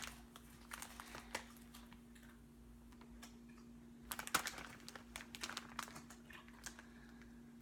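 Faint, scattered rustling and crinkling of plastic candy packaging being handled, in short clusters of small clicks, over a faint steady hum.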